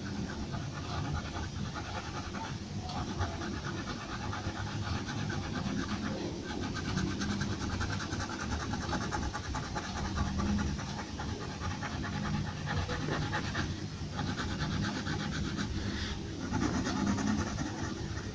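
Pencil scratching on paper in rapid back-and-forth shading strokes, in runs broken by short pauses every few seconds, over a low background rumble of room noise.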